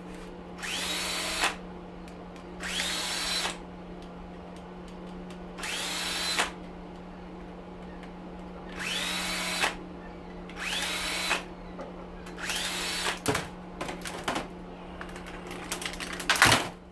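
Cordless drill/driver backing out screws: six short runs of under a second each, the motor's whine rising quickly to speed and holding before it stops. A louder clatter near the end.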